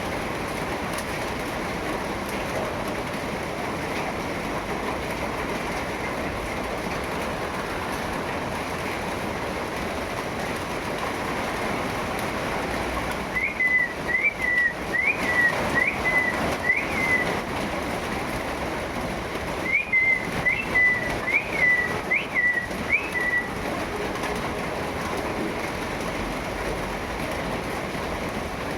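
Steady rain, with a bird giving two runs of about five short, high chirps, each chirp a quick upward flick, the runs a few seconds apart.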